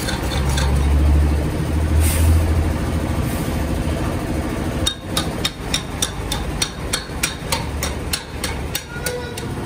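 A low steady machine hum, then about halfway through a rapid run of hammer blows on metal, about five a second, for some four seconds.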